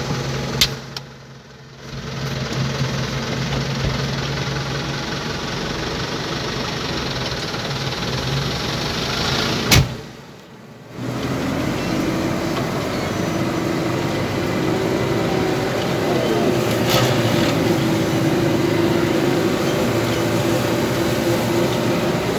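Case IH JX100 tractor engine running steadily, heard from inside the cab. Twice a sharp click is followed by about a second where the sound drops away, and after the second drop a higher steady hum joins in.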